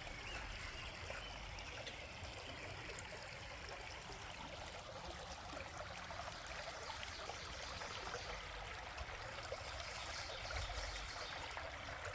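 A shallow, clear-water stream flowing steadily, a soft trickling rush of water.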